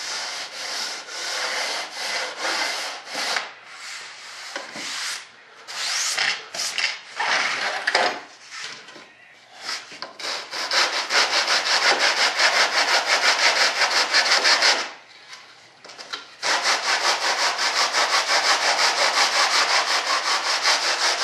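Hand sanding: a sanding block rasping back and forth along a model airplane wing's edge to take out high spots. The strokes are uneven at first, then settle about halfway through into a fast, even rhythm of about four strokes a second, broken by a short pause.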